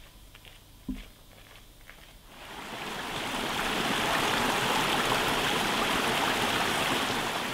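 Small forest stream cascading over mossy boulders: the rush of water fades in a couple of seconds in and then runs steady. Before it, a few faint ticks and a soft thump about a second in.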